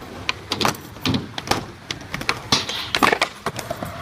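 Skateboard clacking and knocking on hard ground: a quick, irregular run of sharp impacts over a steady rumble.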